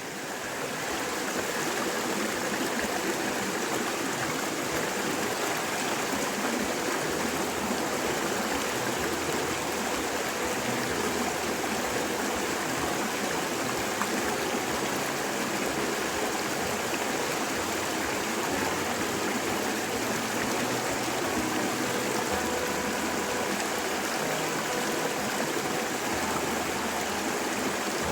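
A steady rushing noise, like running water, holding an even level throughout.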